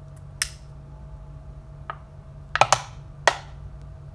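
Ordinary flint lighter struck several times with the thumb: a string of short, sharp, scratchy clicks at uneven spacing, two in quick succession past the middle, over a faint steady hum.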